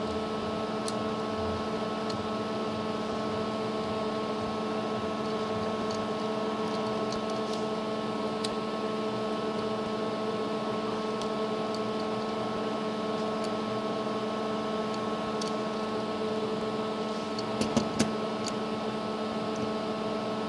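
Steady machine hum made of several held tones, with scattered faint clicks and taps from small parts being handled.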